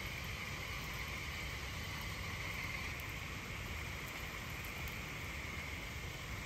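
Steady rain falling, an even hiss with no breaks, with a constant high-pitched drone running under it.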